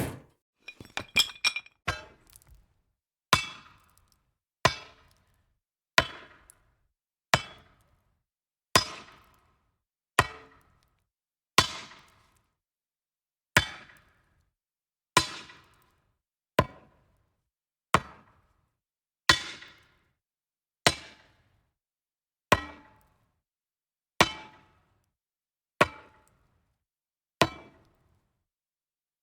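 A slow series of single hard strikes, one about every one and a half seconds, each ringing briefly, after a few light clicks near the start.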